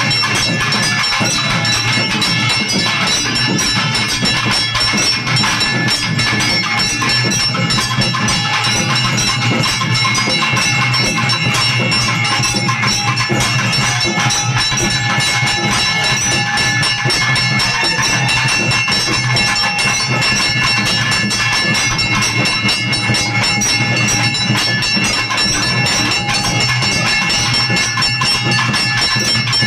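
Temple bells and percussion ringing fast and without a break, with several metallic tones held throughout, as they do during an aarti lamp offering.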